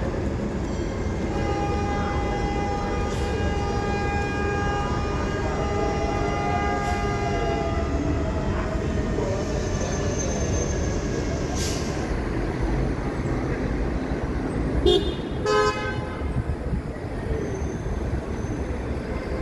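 Car horn held in one long steady blast for about seven seconds, then a short sharp honk later on, over the steady rumble of city traffic.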